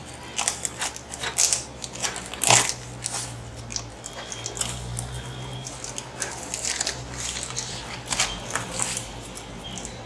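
Cardboard shipping box being handled and pried open with a pen, the tape and flaps giving irregular crackles, rips and taps, the loudest about two and a half seconds in. A steady low hum runs underneath.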